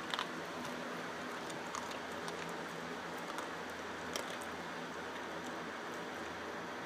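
A dog chewing dry kibble from a metal bowl: scattered soft crunches and clicks, the sharpest near the start and about four seconds in, over a steady background hiss.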